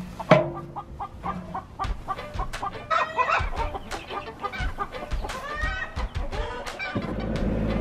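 Young meat chickens in a coop calling and clucking, with scrapes and knocks of a pitchfork clearing hay bedding and one sharp knock just after the start. About seven seconds in, a compact tractor's engine comes in, running steadily.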